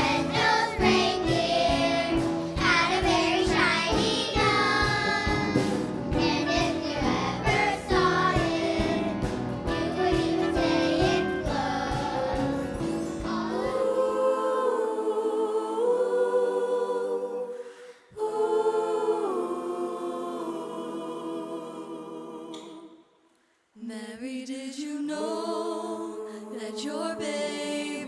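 Choir singing Christmas music. For the first half it sings over a full accompaniment with a steady beat. The low accompaniment then drops out, leaving long held voices, broken by two short near-silent gaps.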